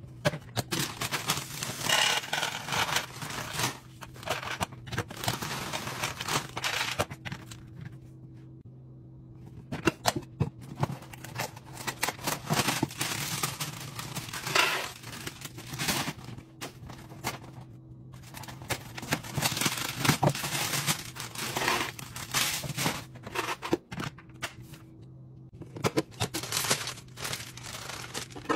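Snack-restock handling sounds: clear plastic push-button storage canisters being handled and set down, crackers tipped out of a cardboard box, and a plastic snack bag crinkling as cookies are dropped into a canister. These come as many irregular clicks and rustles over a steady low hum.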